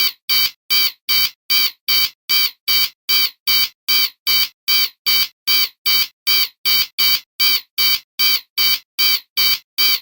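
Electronic intruder alarm sounding a rapid run of short, high-pitched beeps, about two and a half a second, repeating evenly without a break.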